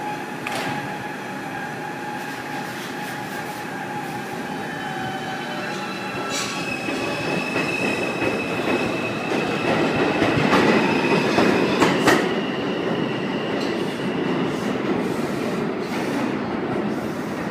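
R142 subway train accelerating out of the station and running past, its AC propulsion whining in steady tones that shift in pitch, with wheel clacks and a high sustained whine. It is loudest about ten to twelve seconds in as the last cars pass, then fades as the train recedes into the tunnel.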